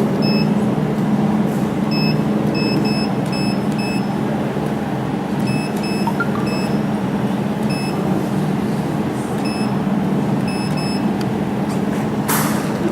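Laser jewelry welding machine running with a steady low hum, giving short, high beeps at irregular intervals, about fifteen in all, as it is fired on the samples. A brief hiss comes near the end.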